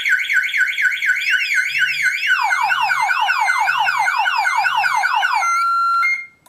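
Car alarm siren driven by a KGB FX-7 alarm unit, set off by grounding the door-trigger wire while the system is armed. It cycles through its tones: a fast warble, then a slower rising-and-falling wail with rapid falling chirps, then a short steady tone, and cuts off about six seconds in.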